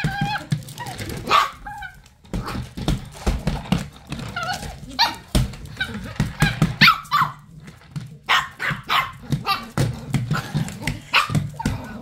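Small dog barking and yapping in quick, irregular bursts while lunging at a cordless stick vacuum head, with scattered clicks and knocks between the barks.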